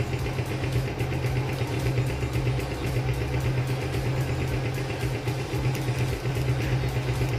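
Small motorcycle engine idling steadily, with an even, unchanging pulse.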